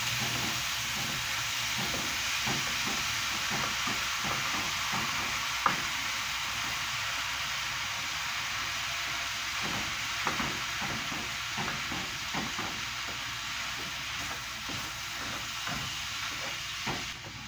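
Lean ground beef sizzling steadily in a large skillet, with repeated scrapes and taps of a spatula breaking up the meat. The sizzle eases a little near the end.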